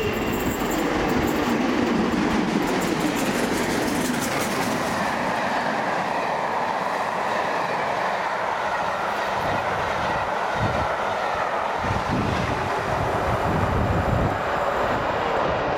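LMS Princess Royal class 4-6-2 steam locomotive No. 6201 'Princess Elizabeth' passing at speed, its exhaust beating rapidly in the first few seconds. Then comes the steady rumble and clickety-clack of its coaches' wheels going by.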